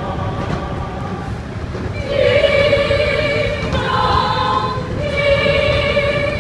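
Mixed-voice choir singing a cappella in held chords, swelling louder about two seconds in, over a steady low rumble from the train car.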